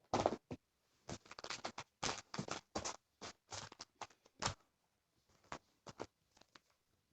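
Irregular short scratching and tapping noises of hands handling small objects, a quick cluster of them through the first half, then thinning out to a few scattered ones.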